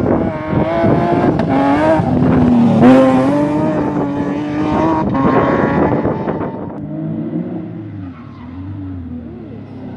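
A rally car at full throttle passes on a loose-surface stage, its engine note rising and dipping through the gears, loudest about three seconds in, then fading away. Near the end a second rally car's engine is heard faintly, rising as it approaches.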